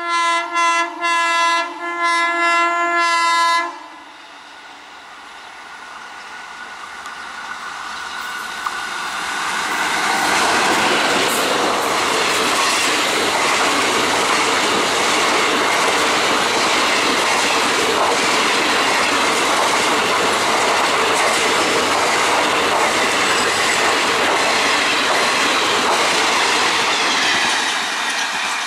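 Electric locomotive horn sounded as a few short blasts then a longer one. A passenger train then comes up and passes close at speed, its wheels rumbling and clattering over the rails, building to a loud steady level and easing slightly near the end.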